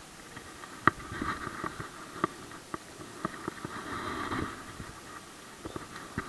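Close handling noise: a sharp knock about a second in, then scattered clicks and scraping as hands work gear right beside the microphone.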